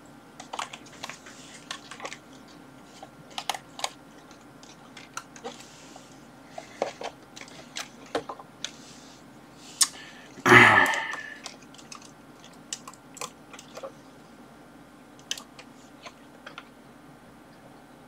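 Scattered light clicks and rattles of wire ends being handled at the spring terminals of a Maxitronix electronics project board while the wiring is checked. There is one short, louder murmur from the person about ten seconds in.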